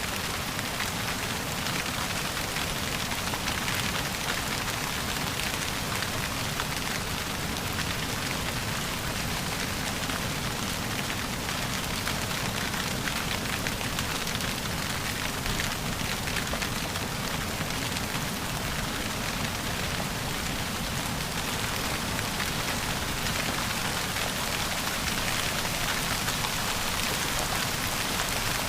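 Steady rain falling and pattering on a surface, an even hiss of many drops without a break.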